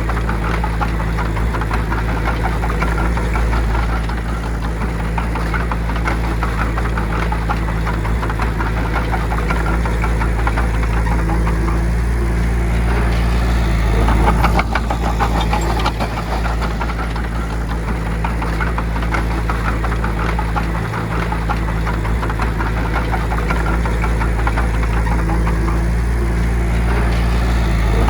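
Heavy diesel bulldozer engine running steadily under load with a fast, dense clatter over a deep hum, swelling briefly about halfway through.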